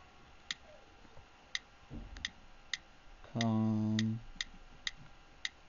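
iPod touch 2G on-screen keyboard clicks as a word is typed: about ten short, sharp ticks at irregular spacing. About three and a half seconds in there is a low steady hum lasting under a second.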